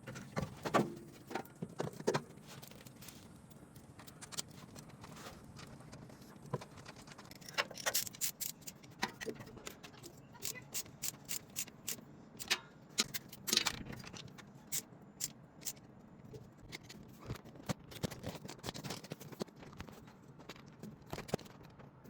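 Irregular sharp metallic clicks, clinks and scrapes of hand tools and parts being handled while a replacement starter is fitted, with quick runs of clicks near the middle.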